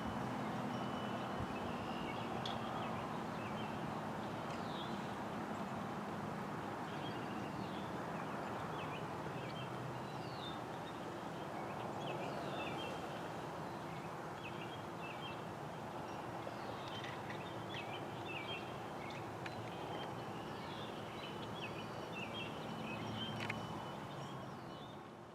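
Birds chirping over a steady background hum of distant environmental noise, fading out near the end.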